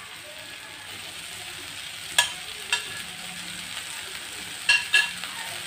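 Sliced onions and shallots sizzling steadily in hot coconut oil in a kadai as they sauté. Two pairs of sharp metallic clinks from a metal spoon as chopped garlic and ginger are tipped in.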